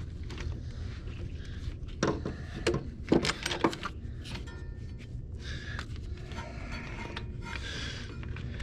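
A few sharp metallic clicks and scrapes of a spark plug socket being worked down into a hard-to-reach spark plug hole on a Jeep 4.0 straight-six, grouped about two to four seconds in, over a low steady hum.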